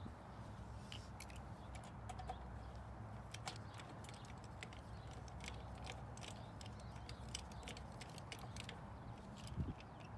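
Faint, irregular small clicks and taps of screws being turned into the metal crank-assembly plate on an umbrella pole, over a low steady rumble.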